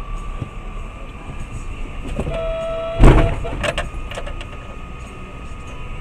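Steady road noise from a moving vehicle. A short car horn blast comes just past two seconds in and is cut off about three seconds in by a loud collision impact, followed by several smaller knocks and clatters.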